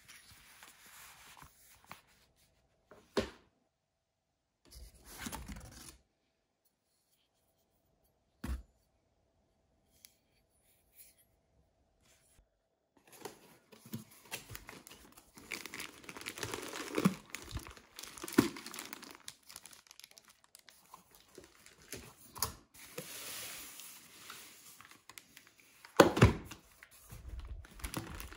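Cardboard packaging and a plastic bag being handled: rustling and crinkling as a box is opened and a wrapped power tool is moved inside its cardboard insert. There are a few sharp knocks of cardboard, including one about 3 seconds in and a loud one near the end, and a quiet stretch in the middle.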